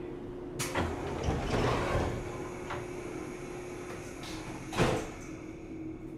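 Passenger sliding doors of a 475 series electric train car working: a sharp clack, about a second and a half of rattling as the door panels slide, then a single loud thump near the end, over a steady hum from the car.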